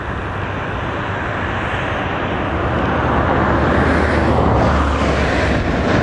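A motor vehicle passing on the road, its engine and tyre noise growing steadily louder toward a peak about four to five seconds in.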